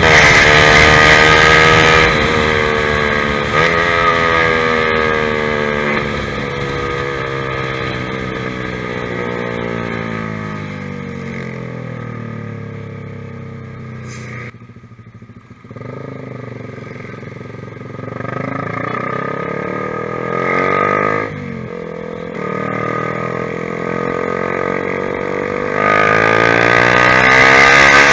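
Honda CBR150R single-cylinder engine through a ProLiner TR1-R aftermarket exhaust while riding. It starts loud at high revs, and the pitch falls steadily as the bike slows, dropping briefly almost quiet about halfway. The revs then climb again, with a short break partway, back to loud, high revs near the end.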